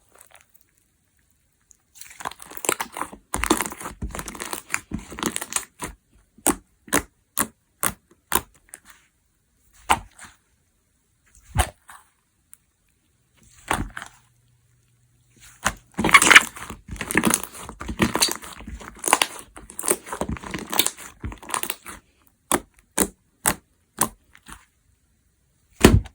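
Hands pressing and stretching slime, with two long spells of dense crackling and, between them, single sharp pops as air pockets burst.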